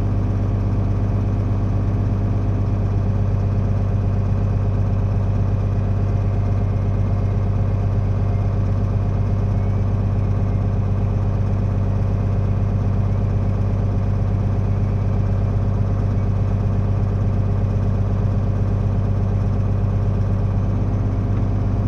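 Tractor diesel engine running steadily while its hydraulics rotate a folding planter frame into field position.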